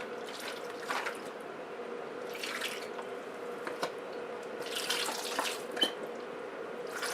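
Liquid poured from a bottle into a plastic bag of chicken wings for a marinade, coming in several short splashing pours.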